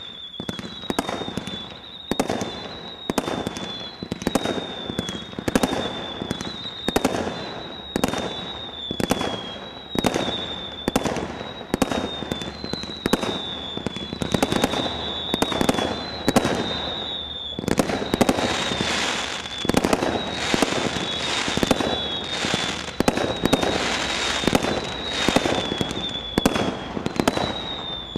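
Multishot consumer fireworks cake firing shot after shot, about once a second: each shot launches a whistling comet with a high whistle that falls slightly in pitch, followed by a bang. From about two-thirds of the way through, the crackling of the bursts grows thicker.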